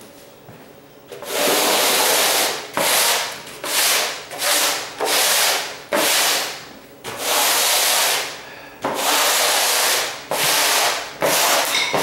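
Broom bristles scraping across a bare, tile-stripped subfloor in a series of about ten sweeping strokes, starting about a second in.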